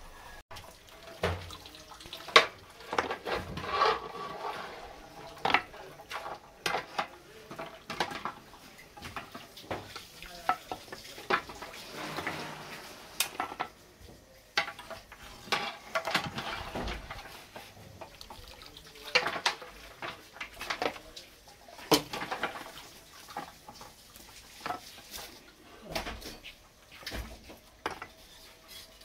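Long metal ladles clinking and knocking irregularly against a large metal cooking pot and a clay bowl as stew is scooped and poured, with liquid sloshing.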